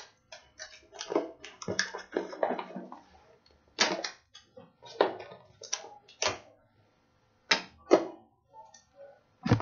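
Clear plastic display box and its seal being handled and pulled open: irregular crinkles, clicks and scrapes of plastic, with a short lull a little past the middle.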